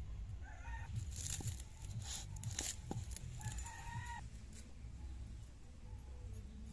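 A chicken calling: short clucks about half a second in, then a longer drawn-out call around three and a half seconds in. Louder sharp snaps and tearing sounds come between, as green stalks are broken apart by hand.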